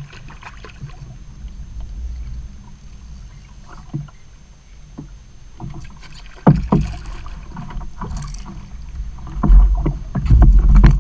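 Water lapping against a plastic kayak hull with low wind rumble and scattered small knocks. From about two-thirds of the way in come louder knocks and splashing as a hooked fish is brought to the kayak and lifted aboard, and heavy low buffeting at the end.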